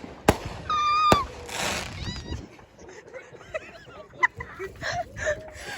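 Fireworks going off: two sharp bangs about a second apart, with a short whistle and a burst of hiss between and after them, followed by faint voices calling out.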